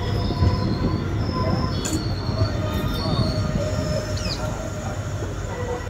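Passenger train coaches rolling slowly along a station platform: a steady low rumble from the wheels and track, with thin, high wheel squeal tones at several pitches coming and going.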